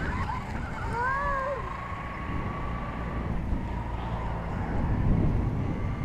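Steady low rumble with wind buffeting the microphone, a faint thin steady whine, and a short wavering cry about a second in.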